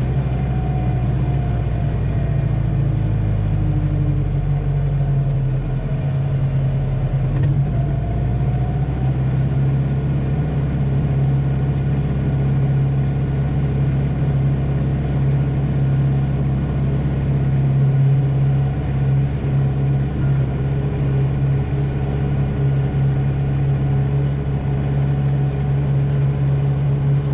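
Landini tractor's diesel engine running steadily, with a faint whine rising and falling during the first several seconds.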